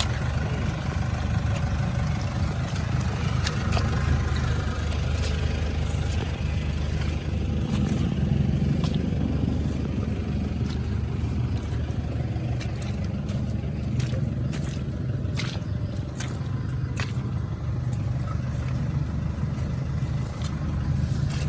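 A 4x4 truck's engine idling steadily, with scattered sharp knocks and scrapes over it, most of them in the second half.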